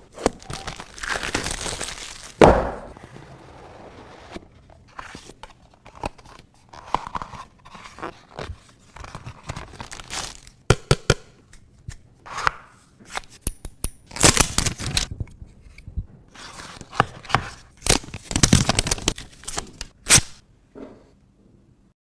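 Smartphone retail packaging being opened by hand: wrapping and paper tearing and crinkling in several noisy stretches, mixed with many sharp clicks, taps and knocks as the box and its parts are handled.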